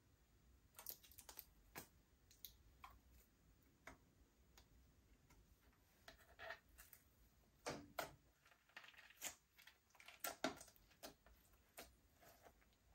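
Slime being worked by hand: faint, irregular sticky clicks and small squishes, coming thicker in the second half.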